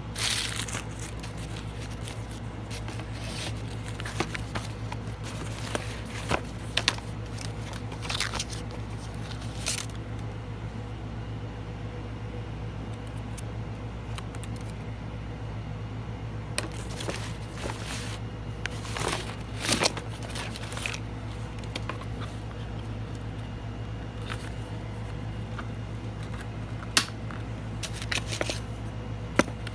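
Steady low hum of an air conditioner, with scattered light clicks, taps and rustles of small craft items being handled.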